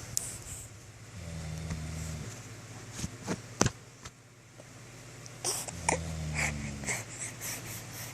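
A man snoring: two long, low snores about four and a half seconds apart, with a few sharp clicks in between.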